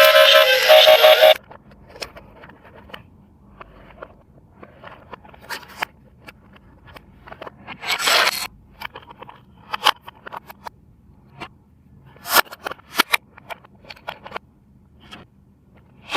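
A toy vehicle's electronic siren sound cuts off abruptly about a second in, followed by scattered light clicks, scrapes and rustles of plastic being handled.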